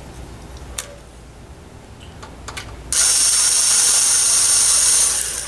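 A few light clicks, then about three seconds in a cordless power screwdriver runs for about two seconds with a steady high whine, backing a screw out of the DVR's metal top cover.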